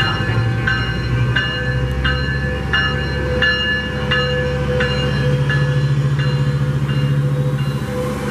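Railroad bell ringing at a steady pace, about three strikes every two seconds, over the steady drone of a train's diesel locomotive.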